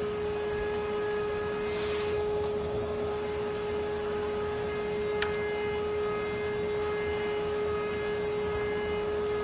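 CNC engraving machine running with a steady high hum, one strong held tone with fainter overtones above it. A single sharp click about five seconds in.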